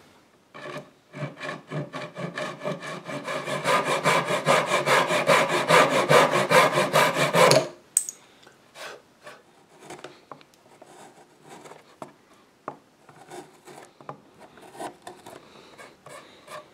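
Hand rasp shaping a wooden furniture foot: quick, even back-and-forth strokes, about four a second, that grow louder and stop suddenly about eight seconds in. After that only faint scattered taps and handling of the wood.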